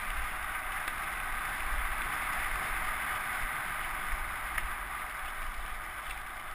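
Mountain bike rolling fast downhill on a gravel track: a steady rush of tyre and wind noise with gusty low wind buffeting on the helmet camera's microphone, and a few short clicks.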